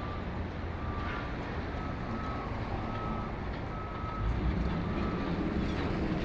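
Backup alarm of a construction vehicle beeping in a steady tone, about one beep a second, over low engine and traffic rumble that swells about four seconds in.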